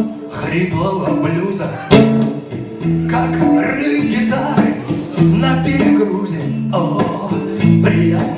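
Blues song played live, with guitar, band accompaniment and a man singing; sharp drum-like hits at the start and about two seconds in.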